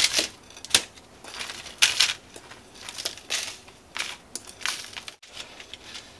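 Wooden spatula scraping crumb-coated rice-cake churros out of a glass bowl onto a parchment-lined plate: irregular crunchy scrapes and crinkling paper, with a few sharp clicks in the first two seconds.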